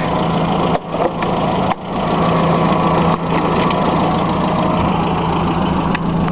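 Land Rover Series III engine idling steadily, a low even drone.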